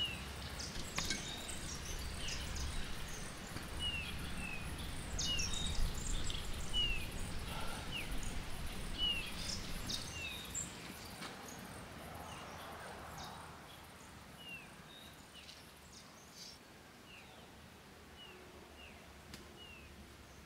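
A small bird calling over and over with short, high chirps that slur downward, one every second or so. A low rumble sits beneath them for the first half and then fades away.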